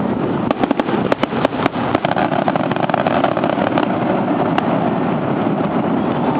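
Fireworks crackling: a quick run of sharp pops from about half a second to just under two seconds in, and one more pop later, over a steady, dense rumble of noise.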